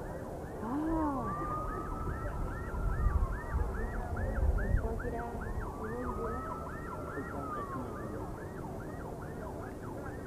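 Sirens sounding together: one in a fast yelp of about three rising and falling sweeps a second, another in slow wails that rise, hold and fall twice, over the noise of a large crowd. A few low thumps come in the middle.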